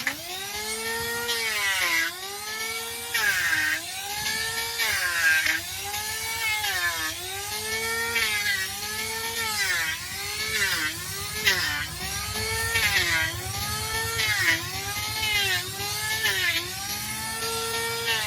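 Electric power tool cutting into a donkey's hoof horn, its motor whine dipping in pitch each time it bites under load and climbing back as it is eased off, about once a second.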